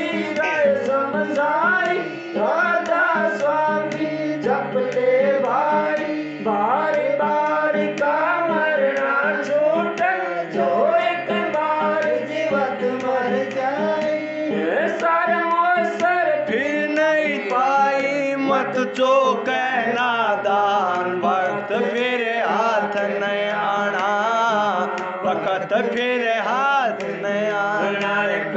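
Male voices singing a Hindi devotional shabad, a melodic line that bends and turns, over steady held low accompanying notes.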